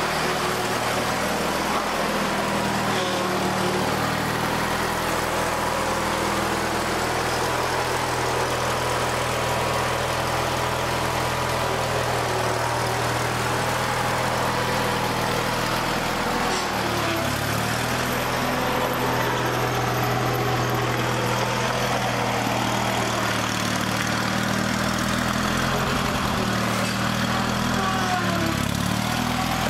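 A Craftsman GT garden tractor's engine running steadily as the tractor drives under its own power on freshly changed Hydro-Gear hydrostatic fluid. The engine note shifts briefly about halfway through and again near the end.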